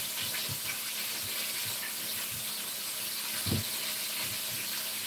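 Chicken back pieces sizzling steadily in hot oil, with a soft knock about three and a half seconds in.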